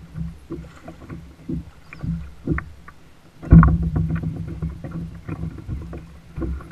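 Scattered knocks and rattles on a plastic kayak as a hooked false albacore is brought alongside and grabbed by hand, with one heavy thump about three and a half seconds in. A steady low rumble runs underneath.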